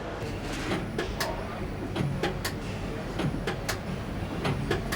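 Engine assembly line at work: a steady machinery hum broken by about a dozen sharp, irregular metallic clicks and clanks from tools and parts.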